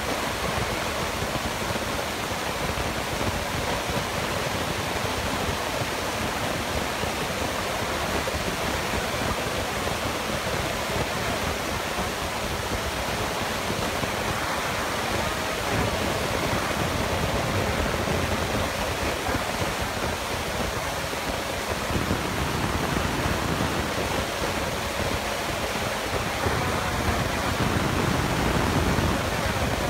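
Excavator with a hydraulic scrap shear running steadily, heard as a dense, even rushing noise.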